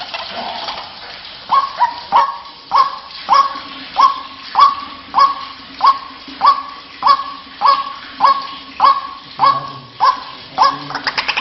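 White-breasted waterhen calling: a long series of short, rising, honking notes repeated evenly, about one every 0.6 seconds, starting about one and a half seconds in. A faint steady low hum runs beneath.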